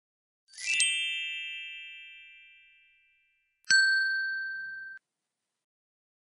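Sound effects of a subscribe-button animation: a bright shimmering chime about half a second in that rings out over two seconds, then a click and a bell-like ding at about three and a half seconds that cuts off a little over a second later.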